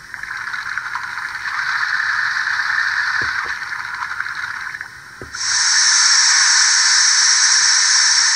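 Sound system of a Bachmann On30 Heisler model steam locomotive standing still, playing steam hiss through its small speaker: a steady hiss, then about five seconds in a louder, brighter hiss of escaping steam that keeps going.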